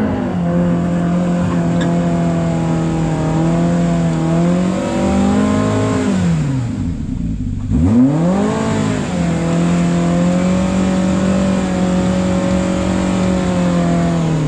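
Side-by-side off-road buggy engine revved hard and held at high revs under load for about five seconds. It drops off around six seconds in, then revs up again and holds until it falls away at the end: two long pulls at full throttle while trying to climb a rock ledge.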